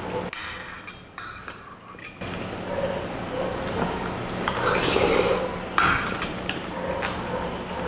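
Metal spoon and fork clinking and scraping against a glass baking dish while scooping up lomi noodles and broth, with a few sharp clicks, and chewing.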